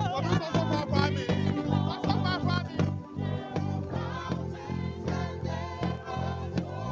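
Praise and worship music with an electric bass guitar playing a busy low line of repeated plucked notes under singing voices.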